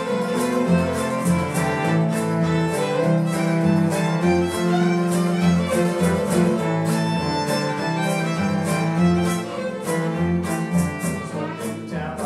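Live acoustic string band playing an instrumental tune: a fiddle bowing the lead over a steady strum of acoustic guitars, with a cello underneath.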